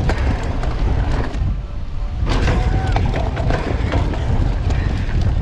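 Wind buffeting the microphone of a bike-mounted or helmet camera as a downhill mountain bike runs fast over a dirt track, with rattles and knocks from the bike over the bumps. There is a short high tone about halfway.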